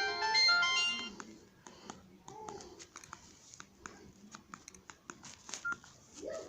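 Samsung SM-B310E keypad phone playing a short electronic tone: a quick run of bright chime notes that lasts about a second and then stops. After it come scattered faint clicks.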